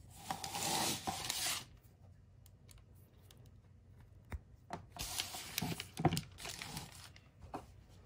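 Handling noise: plastic rustling and rubbing in two bursts about a second and a half long each, with a few small clicks in between, as the iPhone is handled on a plastic mailer bag and its charging cable is plugged in.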